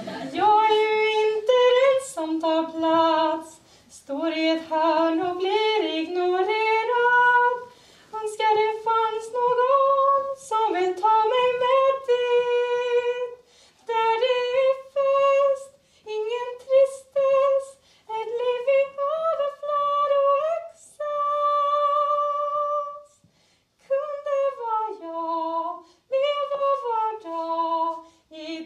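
A woman singing a solo song with no accompaniment, in short phrases with brief pauses between, holding one longer steady note about three-quarters of the way through.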